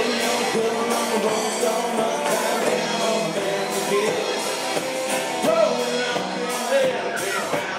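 Live country-rock band playing through the PA, electric guitars over a steady beat, with a man singing lead.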